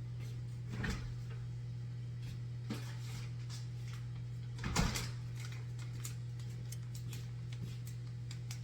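Kitchen handling sounds: a knock about a second in and a louder clunk near the middle, with a few light ticks, over a steady low hum.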